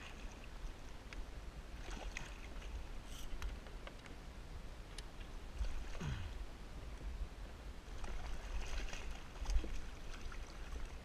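Water lapping and trickling against a plastic sit-on-top kayak hull over a steady low rumble, with scattered small clicks and knocks. There is a brief falling sound about six seconds in and a busier stretch of knocks near the end.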